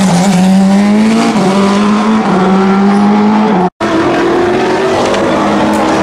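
Porsche 919 Hybrid's turbocharged V4 accelerating past, its pitch climbing and dropping back twice as it shifts up. It cuts off abruptly a little past halfway and gives way to a steady race-car engine note.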